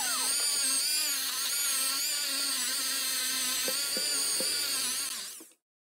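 Small high-speed rotary tool whining as its bit cleans corrosion out of the seal bore of an aluminium transmission bell housing, the pitch wavering slightly as it bears on the metal. It spins down and stops about five seconds in.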